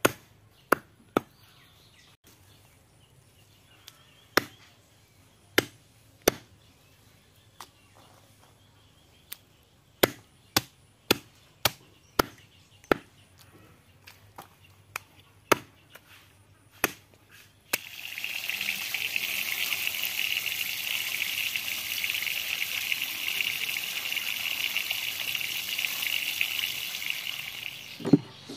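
Heavy knife chopping raw mutton on a wooden stump block: sharp single chops at irregular intervals, sometimes two or three close together. About 18 seconds in the chopping stops and a steady high-pitched hiss takes over, cutting off abruptly near the end.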